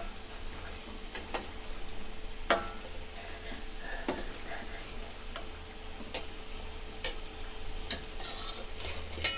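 Gujiya deep-frying in hot oil in a steel kadhai, a steady sizzle. A few sharp clicks of a steel slotted spoon knocking the pan as the pastries are turned, the loudest near the end.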